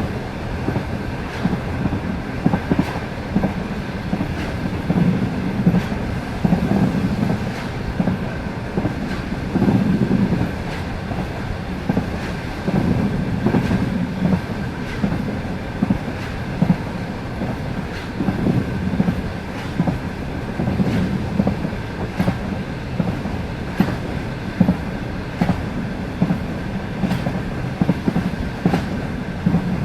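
Passenger train wheels clacking over rail joints at speed: groups of sharp beats every two to three seconds over a steady running rumble.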